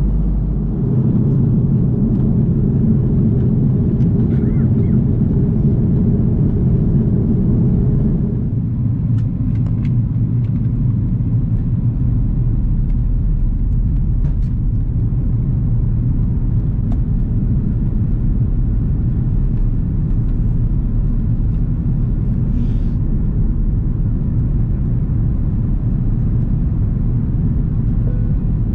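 Steady low rumble of an Airbus A330-300's cabin in flight during its descent. The noise thins slightly about eight seconds in, with a few faint ticks.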